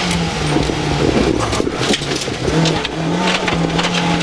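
Rally car's engine running hard under load through a tight uphill hairpin, heard from inside the cabin. A steady engine note runs with frequent knocks and rattles from the car over the road.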